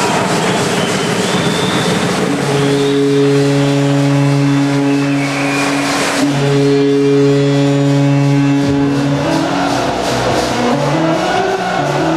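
Arena crowd cheering a goal, then a low, steady horn sounds in two long blasts of about three seconds each. Goal music starts near the end.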